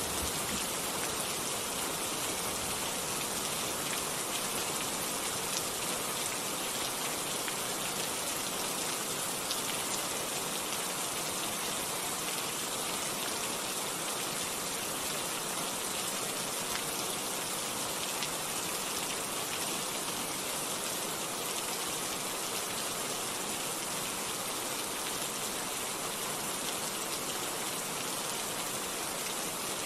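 Steady rain falling: an even, unchanging hiss with a few sharper drop ticks here and there.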